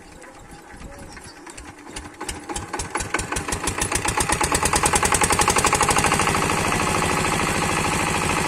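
Generator engine starting up. Its firing beats start slow and sparse, quicken and grow louder over the first few seconds, then settle into a steady, fast running rhythm.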